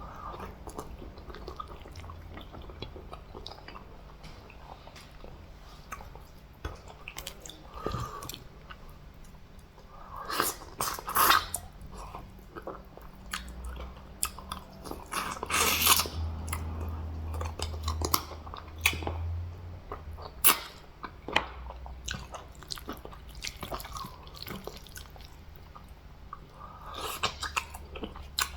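A person chewing and biting into food with wet mouth clicks and some louder bursts, eating fufu with catfish soup and meat.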